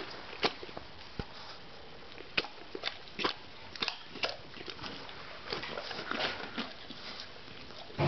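A mastiff crunching and gnawing a raw carrot: irregular sharp crunches, with a denser run of chewing just past the middle.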